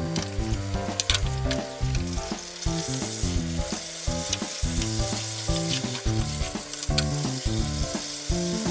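Braised pig's trotters sizzling in a frying pan as their gelatinous cooking liquid heats up, the sizzle growing stronger about three seconds in. A few sharp clicks come from chopsticks against the pan as the trotters are turned.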